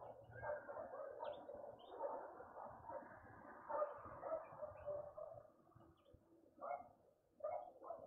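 Faint animal calls: a run of short, repeated calls, several overlapping, then spaced about half a second apart near the end.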